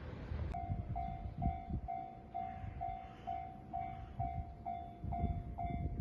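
Japanese level-crossing warning bell ringing its electronic 'kan-kan' tone, about two strikes a second, which warns that a train is approaching. It starts about half a second in, over a low rumble.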